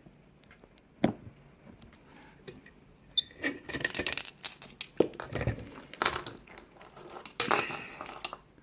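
Handling noise of a small padlock and tools: a sharp click about a second in, then a busy run of metal clicks, clinks and knocks mixed with rustling from about three seconds on.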